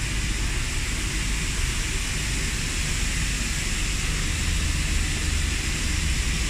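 Steady rushing hiss over a low rumble: the running noise of a parked airliner's air systems at its open boarding door.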